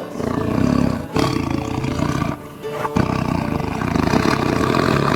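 Tiger roaring and growling in three long, rough roars, the last one the longest, over faint background music.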